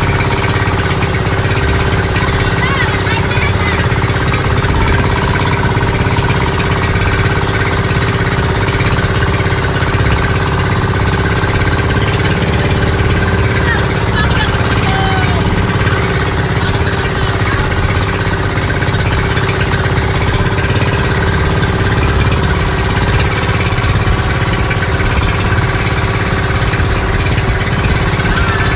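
Passenger motorboat's engine running steadily under way, heard from on board.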